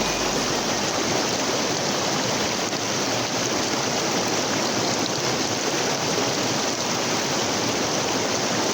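Mountain stream water rushing, a loud, steady, unbroken hiss of flowing water.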